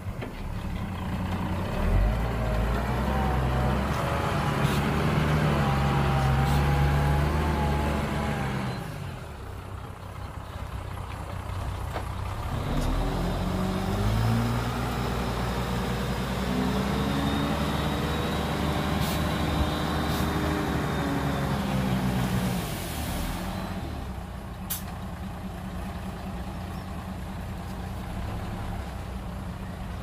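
Heavy dump truck's diesel engine revving up and pulling hard twice, the second time longer, each time dropping back to a low idle. A short burst of air hiss follows near the end.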